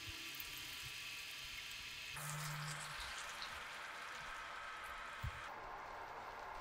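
Chicken masala sizzling and simmering in a frying pan, a steady fine crackle that changes abruptly twice. A brief low hum comes about two seconds in, and a sharp click a little after five seconds.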